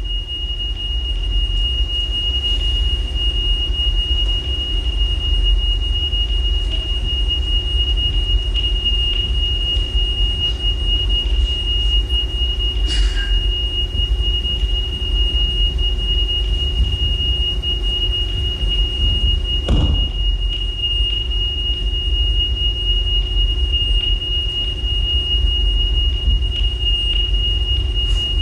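A steady high-pitched whine holding one pitch over a louder low rumble and hum, with a few faint knocks.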